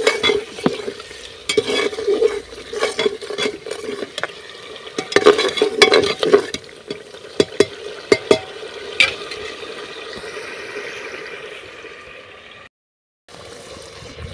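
A spoon stirring and scraping a frying masala of onion, potato and spices in a metal pot, with repeated clicks against the pot over steady sizzling. The stirring eases off about two-thirds of the way through, leaving mostly the sizzle, and the sound cuts out briefly near the end.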